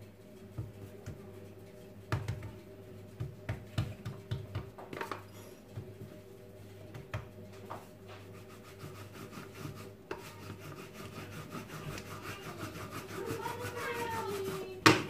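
Plastic rolling pin rolling out a ball of dough on a floured countertop: light taps and knocks of hands patting the dough at first, then steady rubbing strokes from about ten seconds in. A sharp knock just before the end.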